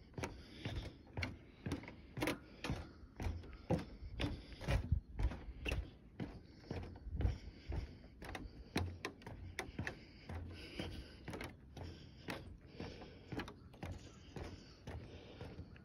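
Footsteps on a wooden boardwalk: the planks knock and clack underfoot at a walking pace, about two to three sharp knocks a second, with dull thumps beneath.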